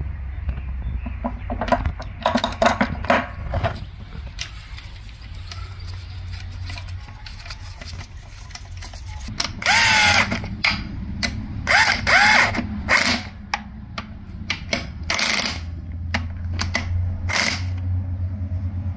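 Cordless power driver running bolts into an aluminium transmission case in several short whirring bursts that rise in pitch, starting about halfway through. Before them, metal parts click and clink as they are fitted.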